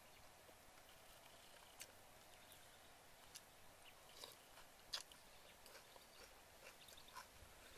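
Faint close sounds of a person eating from a bowl with a spoon: chewing, with a few small sharp clicks scattered through, the loudest about five seconds in.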